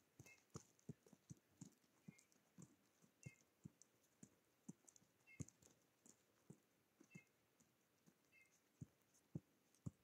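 Feral pigeons pecking seed off a wooden tray feeder: soft, irregular beak taps on the board, about two a second, with a short pause near the end.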